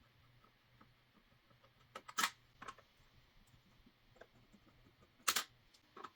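Quiet handling noises: a few short clicks and rustles, with two louder ones about two seconds and five seconds in.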